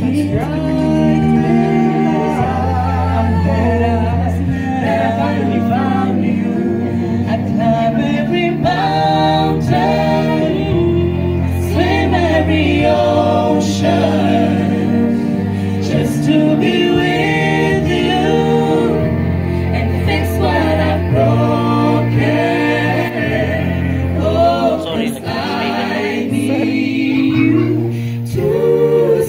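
A small vocal group singing a slow song live into microphones, several voices together, over low bass notes held and changed every second or two.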